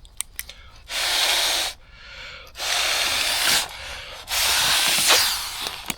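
Trekology inflatable camping pillow being blown up by mouth: three long breaths blown hard into its valve, each about a second to a second and a half, with short pauses for breath between.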